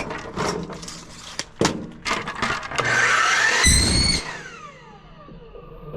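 A few sharp metal knocks from handling aluminum downspout pipe, then a small power tool runs for about a second and a half with a rising whine while cutting the pipe, and winds down with a falling whine.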